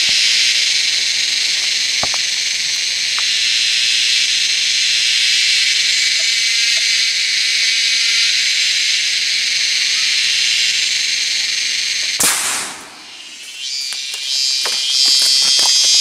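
Dense, loud insect chorus buzzing steadily in the forest canopy. About twelve seconds in there is one sharp crack; the chorus then drops away for a moment and comes back as a high, shrill drone of many thin tones.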